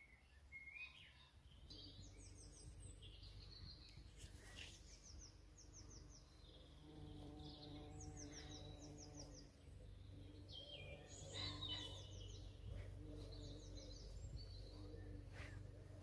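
Faint garden birdsong: several birds singing and calling, with quick repeated high note series. A low steady hum runs under it from about seven seconds in.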